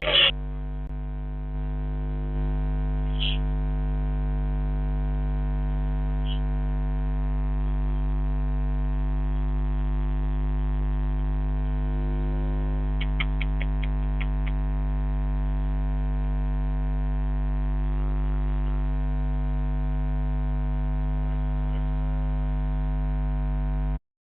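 Steady electrical hum with a deep buzz and a stack of higher overtones. It starts with a click and gets louder in two steps within the first couple of seconds, has a few faint quick ticks about halfway, and cuts off abruptly near the end.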